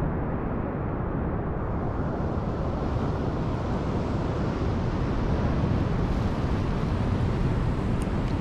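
Wind blowing across the microphone with the sea washing against the jetty rocks: a steady rushing noise, heaviest in the low end, that turns a little brighter and hissier about two seconds in.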